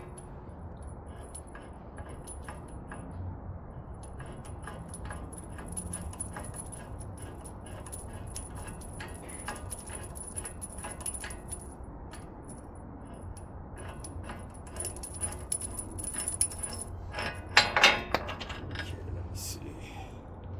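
Metal tools and parts clinking and rattling irregularly during work on a car's front wheel hub assembly, with a louder clatter about three-quarters of the way through.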